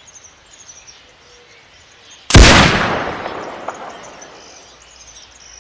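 A single loud gunshot about two seconds in, its echo dying away over about two seconds.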